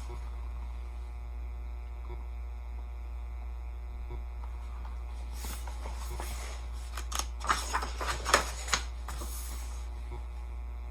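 Steady low electrical hum. From about five and a half to nine seconds in, paper rustles with a few sharp clicks: a picture book's pages being handled and turned.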